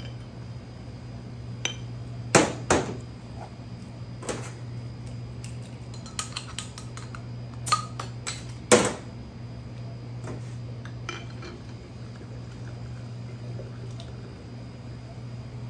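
Glass soda bottles, a metal bottle opener and metal vertical chicken roasters knocking and clinking as they are handled, a scatter of sharp clinks through the first nine seconds, then a few lighter ones, over a steady low hum.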